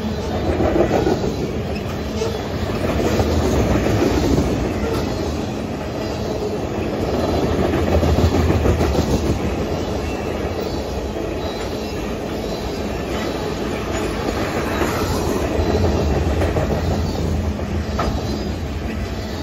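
Freight train of tank cars rolling past at close range: a steady rumble and rattle of steel wheels on the rails, swelling and easing every few seconds as the cars go by.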